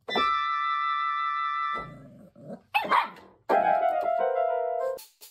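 Electronic keyboard sounding held notes as a puppy stands on the keys: one note for the first couple of seconds, then a lower one. Between them, about three seconds in, the puppy gives one short bark.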